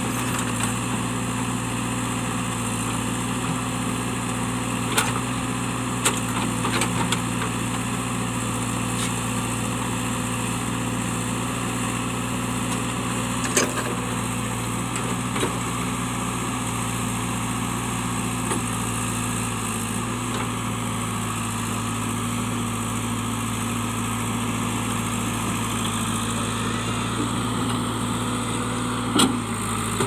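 JCB 3DX backhoe loader's diesel engine running steadily as the backhoe digs, with a few sharp knocks of the bucket striking stones, the loudest near the end.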